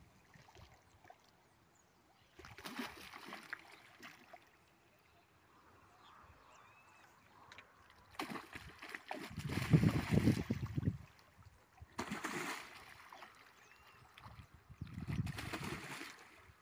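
A hooked fish thrashing at the water's surface close to the bank, splashing in several bursts, the biggest about ten seconds in.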